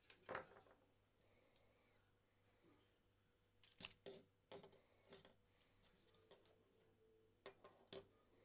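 Faint, sharp clicks and small taps of handling at a bench: a couple near the start, a quick cluster of about six in the middle and two more near the end.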